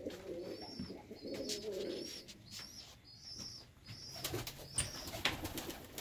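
Birmingham roller pigeons cooing in their loft, with a short high chirp repeating about twice a second over the cooing and a few sharp clicks in the second half.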